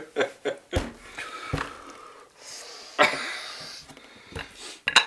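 Coughing, wheezing and sharp breaths in a string of short bursts, with a longer hissing breath about three seconds in. This is a reaction to the burn of a spoonful of shrimp chili paste just eaten.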